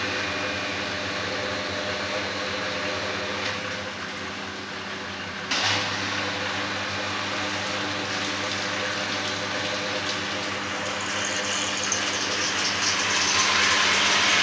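RO water-purification plant running: a steady motor hum with water rushing through the system. There is a single knock about five and a half seconds in, and the rushing noise grows louder and hissier near the end.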